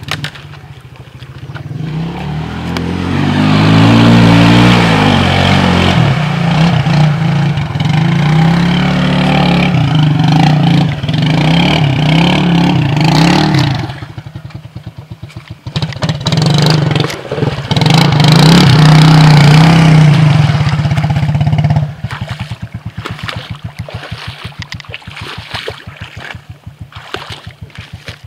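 ATV engines revving hard as the quads are driven through deep muddy water, the pitch rising and falling with the throttle. After about 22 s the engine drops back to a quieter, evenly pulsing run close by.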